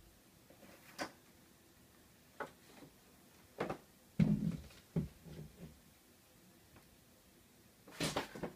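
Scattered knocks and thumps of a person shifting about on top of a shelf unit. The heaviest is a dull thump about four seconds in, with a cluster of knocks near the end.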